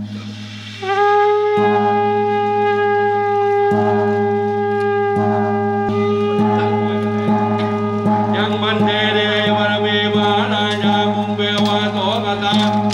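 Ceremonial music led by a wind instrument: long held notes over a steady low drone, turning into a busier, wavering melody from about eight seconds in.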